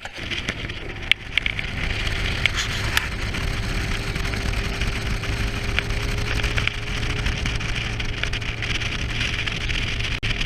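A boat running on the water: a steady motor hum with rushing noise that starts suddenly and holds level, with a few sharp clicks in the first few seconds.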